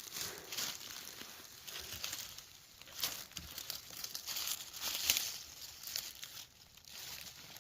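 Irregular rustling and crinkling of dry leaves and forest litter, with louder crackles about three and five seconds in.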